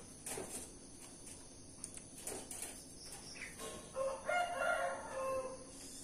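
Rooster crowing once, a drawn-out call of about two seconds starting a little after three and a half seconds in.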